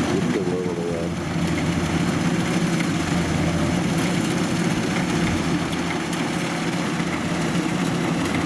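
Kubota DC93 combine harvester's diesel engine running steadily.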